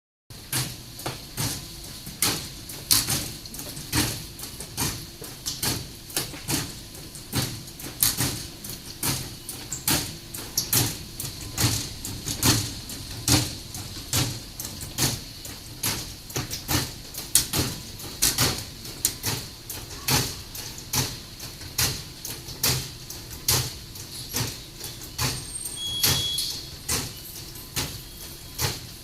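Escalator running with a fault, knocking sharply and regularly a little under twice a second over a low mechanical hum. The abnormal noise was bad enough that station staff stopped the escalator for repair.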